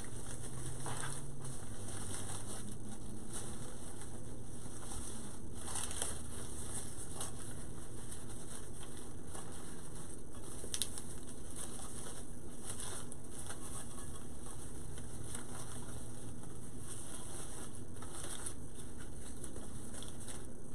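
Soft crinkling and rustling of deco mesh and ribbon being handled and pushed into a wreath, in scattered faint crackles over a steady background hiss.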